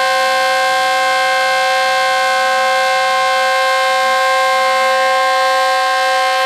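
Diesel locomotive's air horn held in one long, loud, steady blast, then cut off suddenly near the end.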